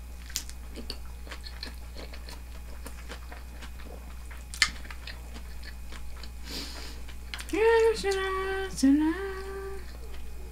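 A person chewing and eating a crunchy kakiage tempura fritter with udon: soft crunches and mouth clicks with one sharper click partway through. Near the end come two short pitched hums, the second one rising at its start.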